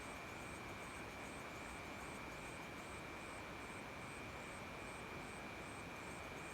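Night insect chorus: crickets holding a steady high trill, with another insect chirping at a very high pitch about twice a second over a soft hiss.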